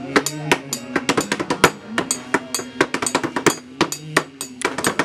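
A tea-stall table drummed by hand like a tabla, quick sharp strikes several times a second, over held guitar notes, accompanying a group song.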